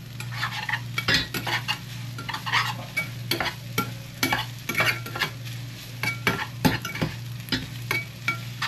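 A utensil stirring and scraping in a frying pan as instant fried noodles are stir-fried, with sizzling, in repeated irregular strokes over a steady low hum.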